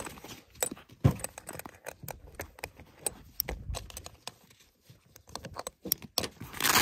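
Canvas bag's webbing straps and metal D-rings being handled: a run of small clicks and jingles with fabric rustling, a louder knock about a second in and a louder rustle near the end.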